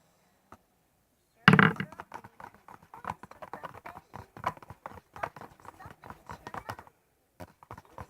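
A loud knock about a second and a half in, then rapid, irregular clicking and tapping of a utensil stirring thick slime in a cup, pausing briefly near the end.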